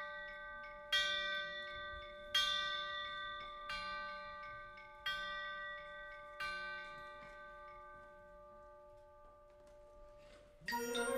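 Bells struck slowly, five strokes about a second and a half apart, each left ringing and dying away, in a quiet passage of a wind band piece. Near the end the full wind band comes in loudly.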